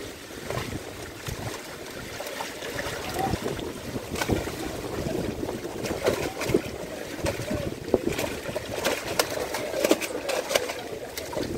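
Indistinct distant voices of people, with wind on the microphone and scattered clicks and knocks.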